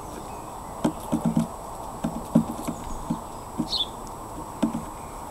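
Great spotted woodpecker pecking at a wooden feeder post: irregular sharp taps, some single and some in quick runs of two or three. A short high chirp falls in pitch about three and a half seconds in.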